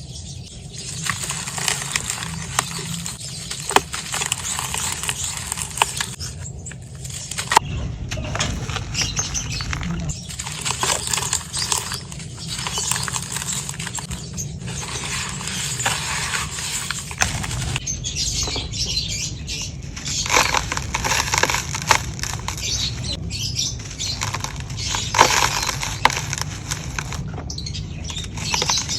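Dry, soft charcoal being crumbled, a gritty crackling and crunching in spells of a few seconds with short pauses between them, over a low steady hum.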